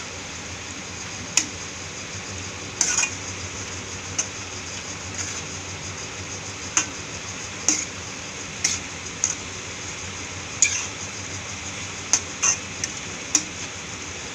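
Metal spatula stirring and scraping stir-fried vegetables in a metal kadai, clinking against the pan irregularly about once a second, over a steady sizzle from the hot pan.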